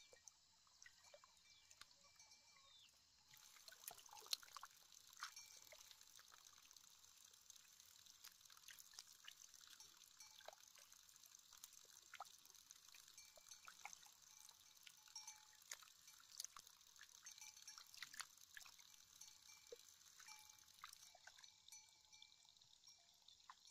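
Faint small splashes, drips and trickles of muddy paddy water as rice seedlings are pressed into the flooded mud by hand. Behind them a steady high hiss starts a few seconds in and stops near the end.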